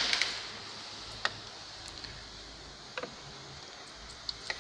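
A handful of scattered light clicks and taps over a steady low hiss, the first one at the very start the sharpest: handling noise around the opened timing-belt area.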